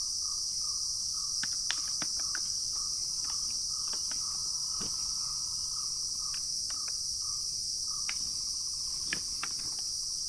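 Steady, high-pitched drone of a chorus of insects in mountain forest, with a fainter steady hum lower down and scattered small clicks and snaps.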